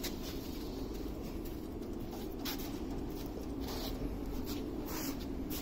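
Steady low hum with a few faint, light clicks and scratches of hands handling parts on a stopped diesel engine.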